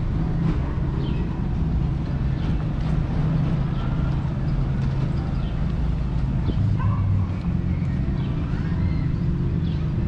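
Town street ambience: a steady low engine hum from a vehicle, with short high chirps repeating throughout.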